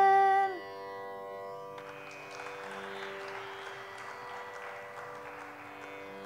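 A woman's held Carnatic vocal note ends about half a second in, leaving a steady tanpura drone; from about two seconds in, audience applause rises over the drone.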